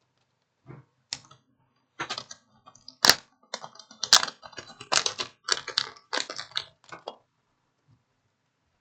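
Hands rummaging among small spare phone parts and their containers while searching for a replacement charging port: an irregular run of light clicks and plastic rattles lasting about six seconds.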